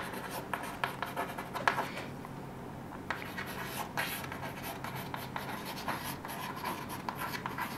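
Chalk writing on a chalkboard: quick scratching and tapping strokes, with a short pause about two seconds in.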